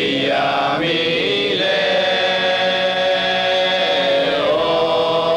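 Afro-Cuban Lucumí chant sung in Yoruba, the voice gliding between pitches and then holding one long note through the middle.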